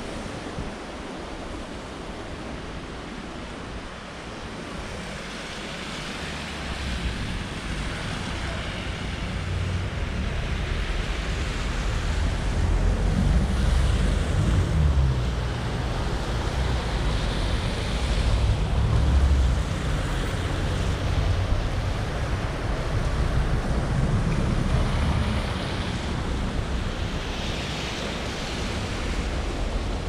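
Wind buffeting the microphone as a deep, uneven rumble that grows stronger about six seconds in, over a steady rush of outdoor street noise with swells that come and go.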